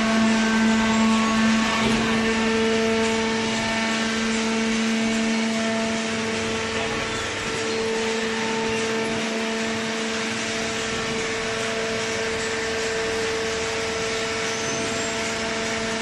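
Horizontal hydraulic baler's motor and hydraulic pump running with a steady hum.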